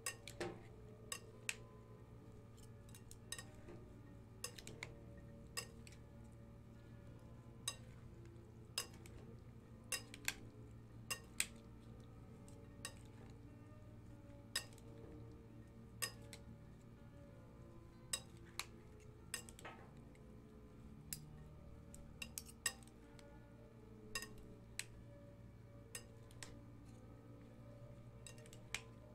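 A metal spoon stirring chickpea and potato chaat in a glass bowl, clinking against the glass at irregular intervals, over a faint steady low hum.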